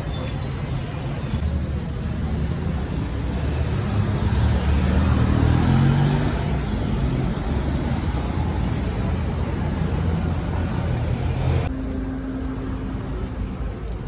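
Road traffic: vehicle engines running past on a city street, one rising in pitch and growing loudest a few seconds in as it accelerates by. The sound changes abruptly near the end.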